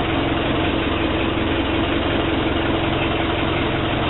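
Case 580C backhoe's four-cylinder diesel engine idling steadily.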